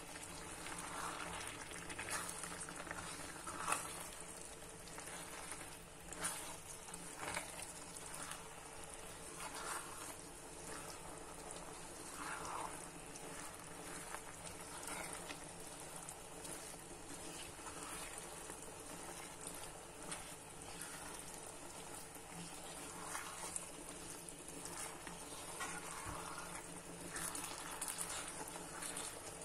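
Wooden spoon stirring rice, sausage and peppers through a pot of jambalaya: faint, irregular scraping and rustling over a gentle sizzle from the pot.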